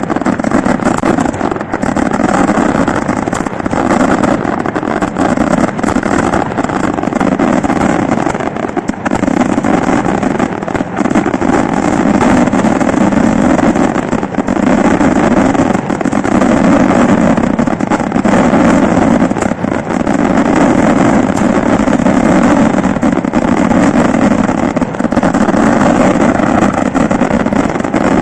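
Daytime aerial fireworks: a dense, unbroken barrage of detonations and crackling, so close together that they merge into one continuous loud noise.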